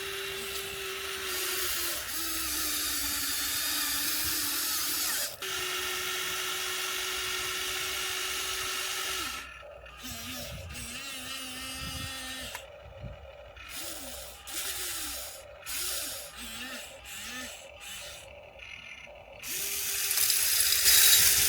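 Electric motors and screw-drive gearing of an RC excavator whining: one long steady run for about nine seconds, then a series of short stop-start bursts whose pitch slides up and down, and a steady run again near the end.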